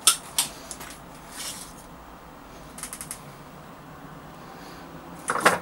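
Small clicks and knocks of a cut-glass oil lamp and a wooden china cabinet being handled, with a soft swish in between and a louder, brief clatter about five seconds in.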